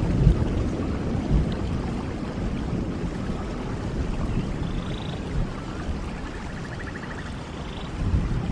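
Steady rain with a deep low rumble that fades over the first few seconds, like distant thunder rolling away. A few faint high chirps come through in the second half.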